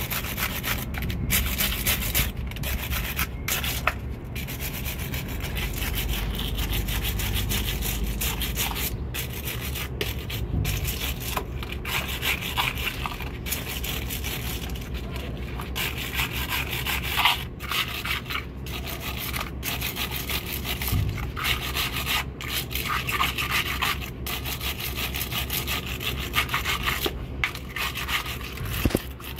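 Steel wire brush scrubbing carbon and corrosion off a truck battery's terminals and cable ends: steady scratchy rasping strokes with brief pauses. The heavy corrosion being cleaned off is what cut the power and kept the truck from starting.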